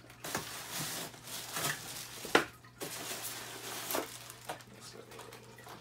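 Plastic bags crinkling and a styrofoam packing insert rubbing and knocking as they are pulled out of a cardboard box, with scattered sharp clicks; the loudest click comes about two and a half seconds in.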